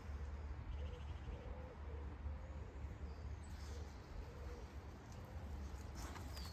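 Outdoor ambience with steady wind rumble on the microphone, a faint low wavering bird call repeating through, and a few faint high chirps.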